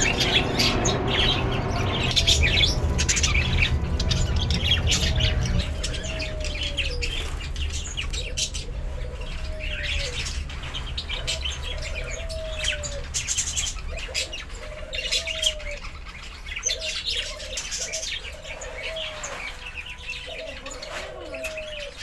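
Caged budgerigars chirping and chattering in many quick, high chirps. From about five seconds in there is also a lower note that rises and falls, repeated roughly every second and a half. A low rumble sits under the first five seconds or so.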